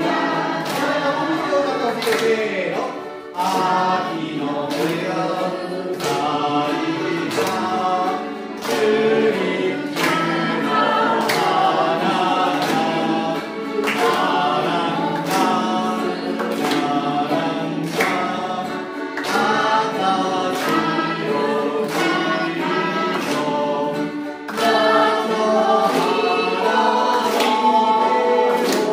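Several voices singing a song together in chorus, with instrumental accompaniment and a steady beat.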